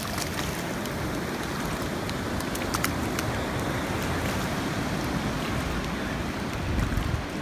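Shallow ocean surf washing up the sand and swirling around a seated child, with wind buffeting the microphone. A few faint clicks come about three seconds in.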